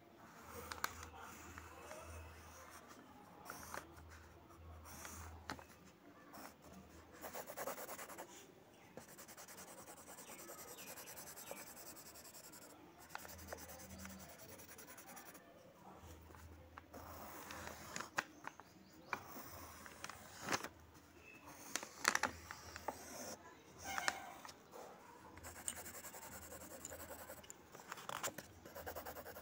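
Pencil scratching and rubbing on paper as lines are drawn and the eyes are shaded in, with sharp clicks here and there.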